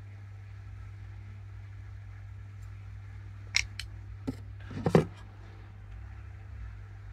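A few sharp clicks and knocks from makeup items and a hand mirror being handled and set down, the last knock the loudest, over a steady low hum.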